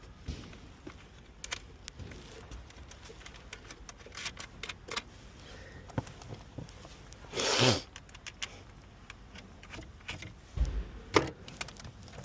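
Light clicks and knocks of hands and tools handling metal and plastic parts while fitting a car's shift lever. There is a short scraping rush about seven and a half seconds in, and a few louder knocks with a dull thump near the end.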